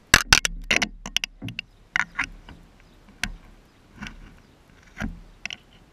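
Irregular knocks and clicks of a just-caught small fish being handled in a plastic sit-on-top kayak: a quick cluster in the first second, then single knocks about once a second.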